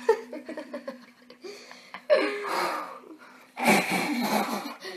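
Children blowing hard through paper dragon blowers with crepe-paper streamers: two long, breathy blasts, one about two seconds in and another about a second later, with short bits of a child's voice or giggling between.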